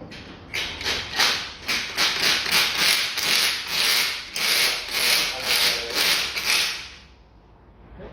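A hand tool worked in quick repeated strokes, about two a second, for roughly six seconds, each stroke a scraping or ratcheting burst. The strokes stop near the end.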